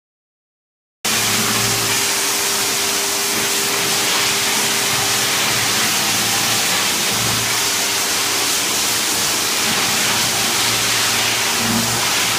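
Weighted single-disc rotary floor machine running, its brush scrubbing wet slate tiles: a loud, steady rushing noise with a faint steady motor hum, starting abruptly about a second in.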